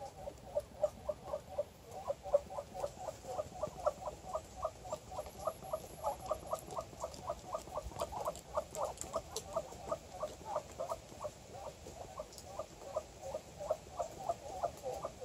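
Female Muscovy ducks giving a steady stream of soft, quick, chirping calls, about four or five a second.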